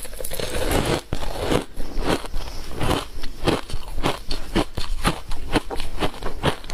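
Ice coated in matcha powder being bitten and chewed: a crumbling crunch in the first second, then a steady run of short crunches, about three or four a second.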